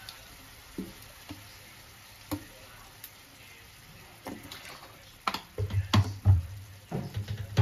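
Broccoli and chicken frying in a pan on a gas stove: a quiet steady sizzle with a few faint ticks, then from about five seconds in a run of louder knocks and clatters.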